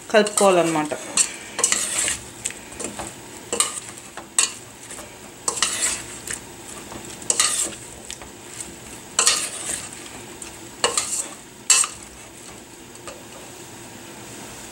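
A metal spoon stirring boiled cauliflower florets through thick batter in a stainless steel bowl, in uneven strokes about a second apart, stopping near the end.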